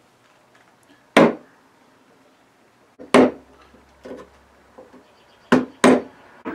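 Chisel being struck into a walnut gunstock, cutting the mortise for a flintlock's lock: four sharp blows, one about a second in, one about three seconds in and two close together near the end, with a few lighter taps between.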